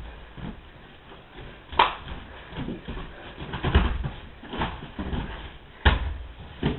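Thuds, knocks and shuffles of two wrestlers grappling on a plastic-covered wrestling mat, with two sharp slaps, about two seconds in and near the end, and a heavy thud just before four seconds in as one wrestler goes down to the mat.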